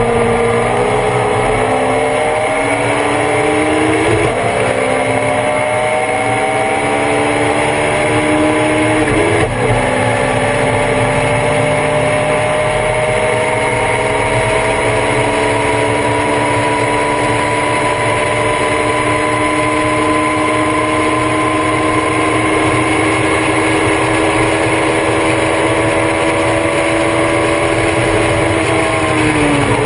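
Thunder Roadster race car engine heard on board at full throttle. The revs climb, with upshifts about four and nine and a half seconds in, then rise slowly through a long pull and hold high. The revs fall away near the end as the driver lifts off the throttle.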